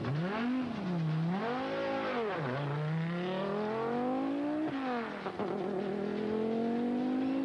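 Turbocharged five-cylinder engine of an Audi 5000 CS Quattro record car accelerating flat out from a standing start. Its pitch climbs and drops back at each upshift, about two and a half and four and a half seconds in, then climbs again.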